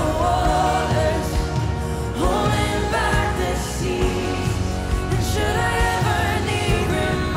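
Live Christian worship song: a woman sings the lead melody over a full band of keyboard, bass guitar and drums.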